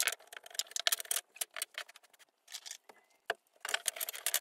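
Loose wooden bed slats clattering and knocking against one another and the bed frame as they are handled and laid in place: a run of light, irregular clicks and knocks with a short lull a little past the middle.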